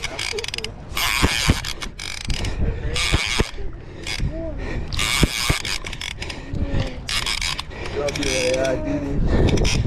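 Large conventional saltwater reel cranked hard under the load of a fighting fish, its gears and clicker ratcheting in short, irregular spurts.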